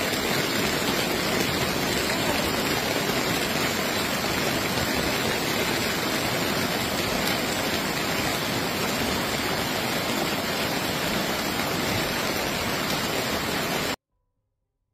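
Steady rushing noise of a fast-flowing flooded river in heavy rain, ending abruptly near the end.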